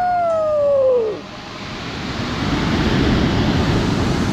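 Sea waves washing in over a pebble beach. The surf swells louder after about a second, once a single long pitched note that slides downward has died away.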